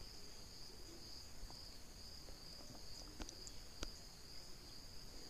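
Quiet background with a faint, steady high-pitched chirring, and a few soft clicks about three and four seconds in.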